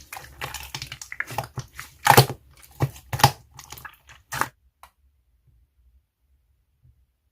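Slime being squeezed and stretched by hand: irregular squishing and crackling pops, the loudest about two seconds in, stopping about five seconds in.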